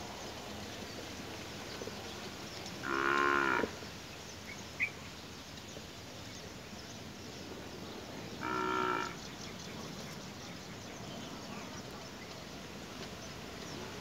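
Two drawn-out, low-pitched animal calls, each under a second long and about five and a half seconds apart, with a brief high chirp between them.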